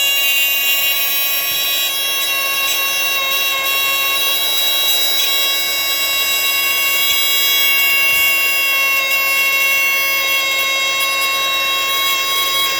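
A 1960s Detexall heat-activated fire alarm sounding continuously, a steady, unbroken tone with many overtones. It has been tripped by the heat of a hair dryer in a test.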